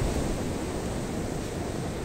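Rough surf breaking and washing up a sandy beach, a steady rushing noise, with wind rumbling on the microphone.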